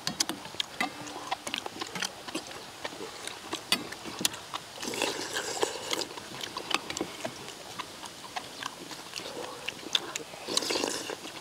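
Eating noises at a shared meal: spoons and chopsticks clicking against stainless steel bowls, chewing, and two longer stretches of slurping hot stew, about halfway through and near the end.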